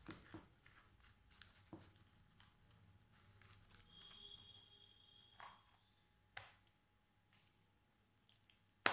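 Faint handling sounds of paper and plastic: crumpled paper pressed into a small plastic housing and the plastic parts of a disco light being fitted together, with scattered soft clicks, a faint squeak about four seconds in and one sharp click near the end.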